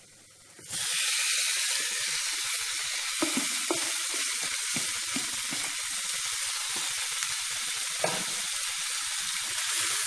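Marinated chicken pieces dropped into a hot non-stick pan of fried onion masala, setting off loud, steady sizzling that starts suddenly under a second in. A few light knocks against the pan come through the sizzle.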